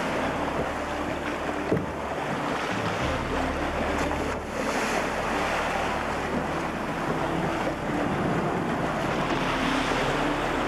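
Wind and sea rushing past a racing trimaran under way, with wind buffeting the microphone. A single sharp knock about two seconds in.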